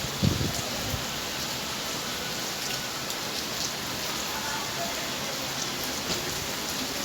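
Heavy rain falling steadily: an even hiss of drops with scattered small ticks, and a short low thud just after the start.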